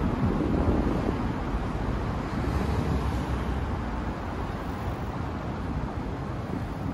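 Downtown city street ambience: a steady low rumble of road traffic, a little louder in the first couple of seconds and then easing slightly.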